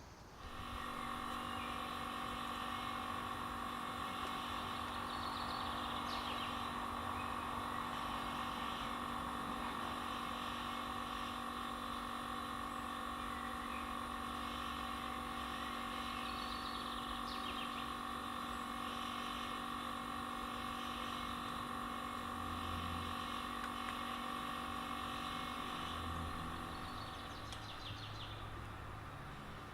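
Hörmann HLS 273 pneumatic high-performance civil-defence siren giving the all-clear: one steady, unwavering chord of several tones that fades out near the end as the siren winds down. It is running weak because of a technical fault that sapped its volume.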